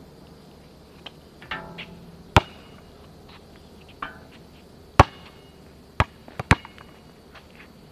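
Basketball play on an outdoor court: four sharp smacks of the ball, one about two and a half seconds in, one about five seconds in, then two close together near the end, some with a brief ring after them.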